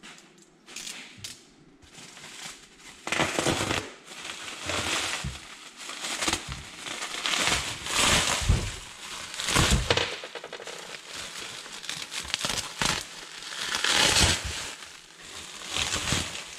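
Bubble wrap and plastic bag crinkling and rustling in uneven bursts as they are pulled off a new snowmobile exhaust pipe by hand.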